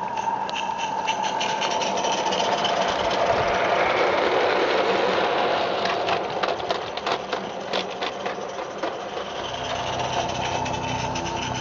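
Small live-steam garden-railway locomotive, a Merlin Major 0-6-0, running past close by with a fast mechanical chatter and steam hiss that swells and then fades. In the middle there is a run of sharp clicks as the goods vans roll over the track and bridge, and a low steady hum comes in near the end.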